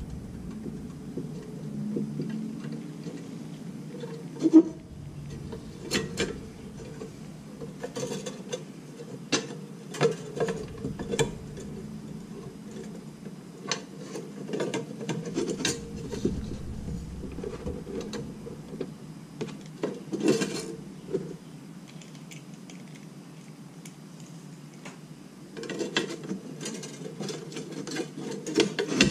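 Nichrome wire and the metal ice-cutter grid of an undercounter icemaker being handled while it is restrung: scattered light clicks, taps and rustles. There is a sharper knock about four and a half seconds in, and it all sits over a steady low hum.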